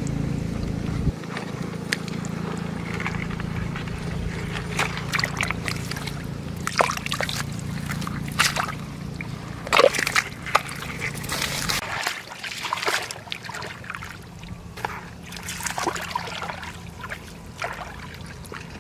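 Shallow water sloshing and splashing in irregular strokes, as hands work through it. Under it a steady low hum runs and stops suddenly about twelve seconds in.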